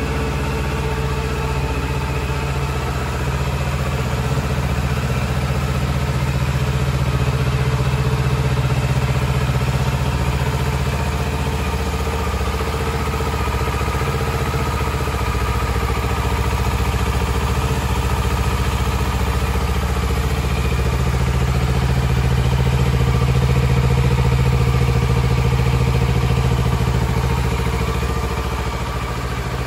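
Kawasaki Z650RS's 649 cc parallel-twin engine idling steadily, with no revving.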